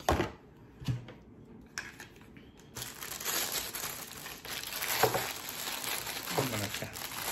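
Plastic packaging crinkling as it is handled and unwrapped. There are a few light knocks in the first two seconds, then continuous crinkling from about three seconds in.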